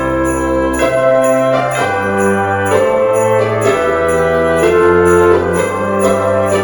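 Christmas background music: an orchestral arrangement with jingle bells shaken about twice a second over held chords and a moving bass line.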